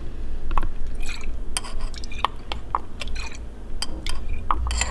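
Fish sauce being poured from a bottle into a measuring spoon: irregular small drips and plinks of liquid, with light clicks and clinks of the spoon and bottle.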